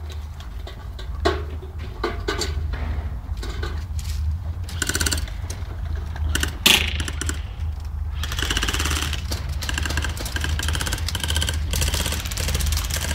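Airsoft electric guns firing rapid full-auto bursts, heard as fast rattling runs, mostly in the second half, over a steady low rumble and scattered sharp clicks.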